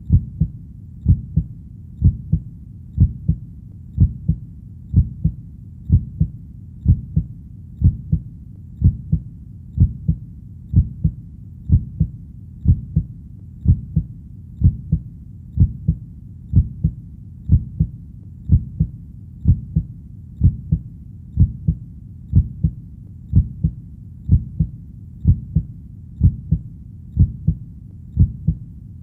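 Heartbeat going at a steady slow rate of about one beat a second, each beat a low double thump (lub-dub), over a faint steady low rumble between beats.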